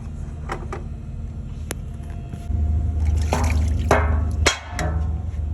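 DeLonghi Magnifica Evo coffee machine's pump humming, then running harder about two and a half seconds in as water spurts and splashes out into a container, typical of a rinse or descaling cycle.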